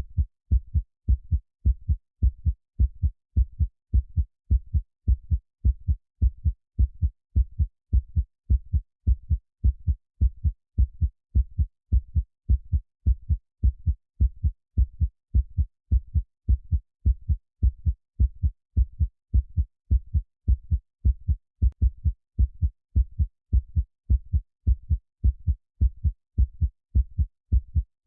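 A heartbeat sound: a steady lub-dub of paired low thumps repeating evenly, with silence between the beats and no hiss behind them.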